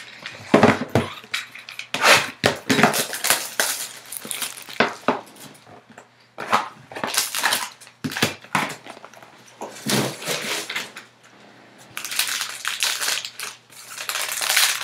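Trading-card box and its clear plastic wrapper being handled: irregular knocks, rustles and crinkles, with a denser stretch of crinkling near the end as the wrapper is worked open.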